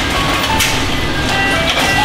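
Car assembly-line noise: a steady dense mechanical din with two sharp knocks, about half a second in and near the end. Over it runs a simple electronic melody of short beeping notes.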